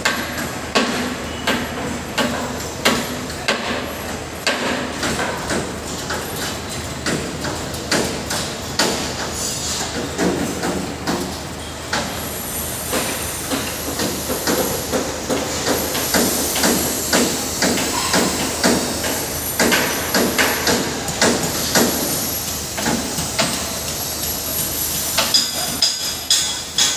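Building construction site noise: frequent, irregular hammer blows and metallic knocks, several a second at times, over a steady background din.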